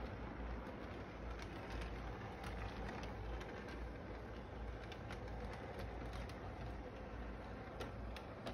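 Model train running on its track: a steady rumble of motor and wheels with faint, irregular clicks, under steady background noise.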